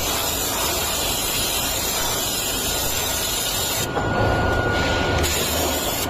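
Steel mill production noise: a steady loud hiss over a low machinery rumble. The hiss drops away about four seconds in, leaving the rumble, and comes back about a second later.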